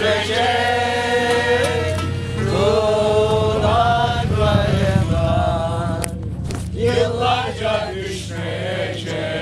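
A group of men and women singing a folk song together in unison, holding long notes, with a short break about six seconds in.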